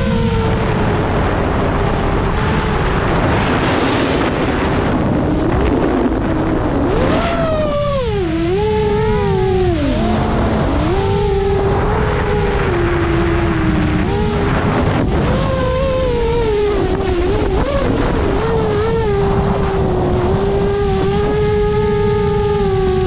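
A 7-inch FPV quadcopter's brushless motors and propellers whining from its onboard camera, the pitch rising and falling repeatedly with the throttle, over a heavy rumble of wind and prop wash on the microphone.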